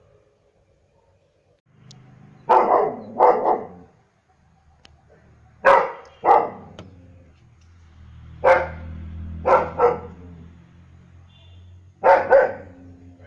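German shepherd dog barking in short groups of two or three loud barks, about eight barks in all, with pauses of a second or two between groups.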